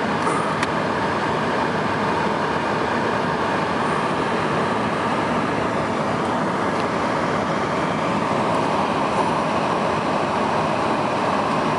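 Steady road and tyre noise of a vehicle driving, heard from inside the cabin.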